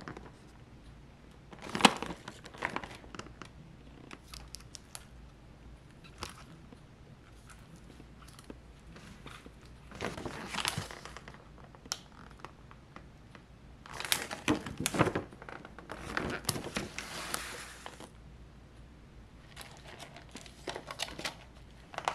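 Thin plastic clamshell food containers and grocery packaging crinkling and clacking as they are picked up, turned and set down on the counter, in several short bursts with quiet stretches between.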